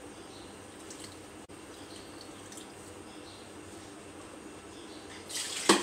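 A bread slice being soaked in water in a plastic tub and squeezed out, with faint water dripping and small ticks. Near the end comes a brief scrape and a sharp knock of something set down on the counter.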